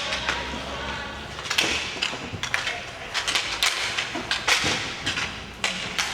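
Inline hockey play: irregular sharp clacks and thuds of sticks striking the puck and hitting the rink boards, several a second.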